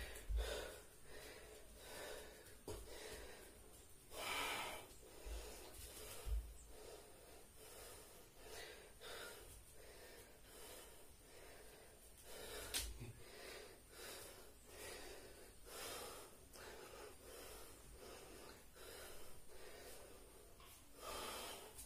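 A man breathing hard from exercise, loud puffs of breath every few seconds, with a few low thuds of bare feet on the floor.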